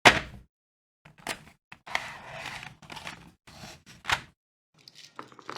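Irregular clicks and clacks of mechanical keyboard switches being handled and pressed, a sharp clack at the start and another about four seconds in, with a longer rustle around two to three seconds in.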